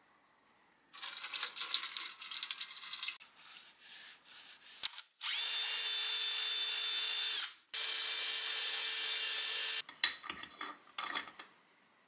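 A power tool cleaning out the bore of a cast-iron drill press head casting: a rough scraping burst, then two steady runs of about two seconds each that start and stop abruptly, followed by scattered clatter.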